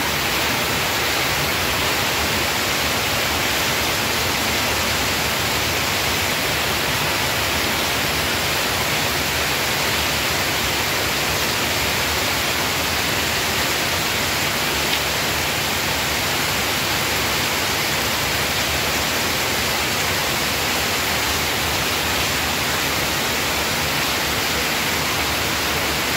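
Heavy rain pouring down, a steady loud hiss that keeps an even level.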